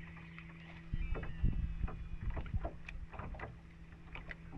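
Water slapping and knocking against the hull of a small fishing boat, irregular thumps over a steady low hum.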